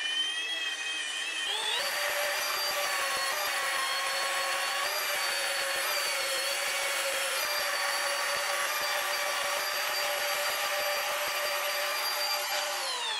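Electric rotary polisher with a foam pad running against a stainless steel exhaust pipe, aggressively compounding it with polishing compound. The motor whine climbs in pitch over the first second or two as it spins up, holds steady, and begins to fall away right at the end as it winds down.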